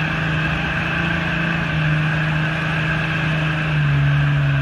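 Jeep Wrangler YJ engine held at steady, raised revs as the rock crawler climbs over boulders, dropping slightly in pitch near the end.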